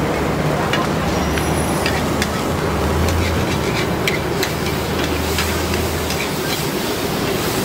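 Oyster omelette frying in a wok over a gas burner: steady sizzling, with the metal spatula clinking and scraping against the wok many times. A low rumble runs underneath and stops about six seconds in.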